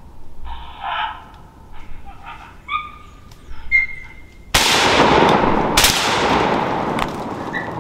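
Coyote-type barking and howling from the calling setup, then a rifle shot a little past halfway that rolls on as a long echo, and a second shot about a second later.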